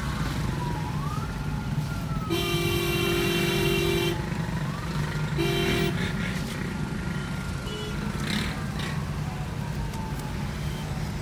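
Stop-and-go city traffic heard from inside a car: a steady low rumble of engines, a vehicle horn giving one long blast of about two seconds and then a short toot, and a faint siren wailing slowly up and down.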